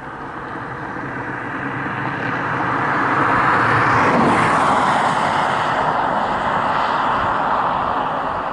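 A road vehicle driving past: tyre and road noise swells to its loudest about four seconds in, drops in pitch as it passes, then slowly fades.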